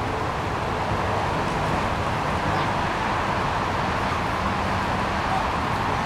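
Steady rushing of a nearby stream, a constant even noise.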